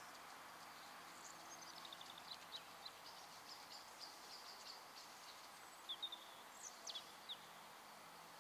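Faint birdsong over a steady low hiss: a run of high chirps and short falling trills, then a few louder, sharp calls about six to seven seconds in.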